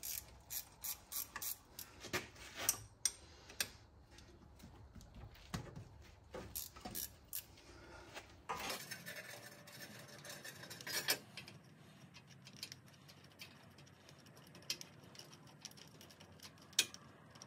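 Light metallic clicks and clinks of a hand wrench working on the transmission mount bolts under a pickup's frame. There is a quick run of clicks in the first few seconds, then scattered single ones.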